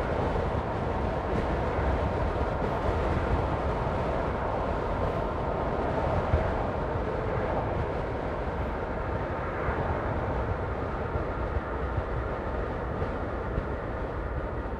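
Car driving at steady speed: an even rumble of tyres on the road and engine noise.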